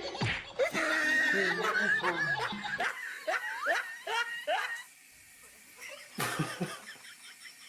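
A person laughing, breaking into a run of short ha-ha bursts that die away about five seconds in, with a brief burst of laughter again near the end.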